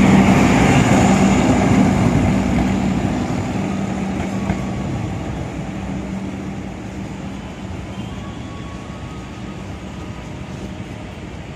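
Indonesian long-distance passenger train's last coaches rolling past on the rails, with the steady hum of the diesel generator in its rear power car. The train then moves away down the line, and the wheel noise and hum fade steadily.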